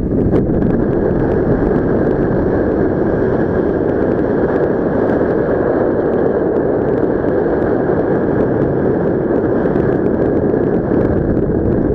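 Loud, steady rush of wind buffeting the microphone as a paraglider flies.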